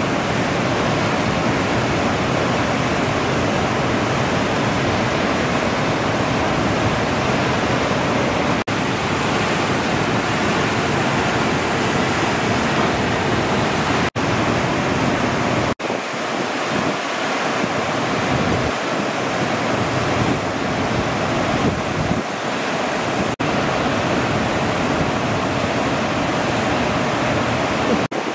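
Steady roar of breaking ocean surf, an even rushing noise, broken by a few very short dropouts.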